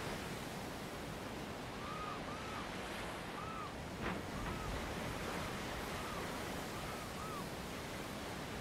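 Sea surf washing steadily around a rock. Over it, a run of short, high, arching chirps, mostly in pairs, comes in from about two seconds in to near the end, with a single sharp click about four seconds in.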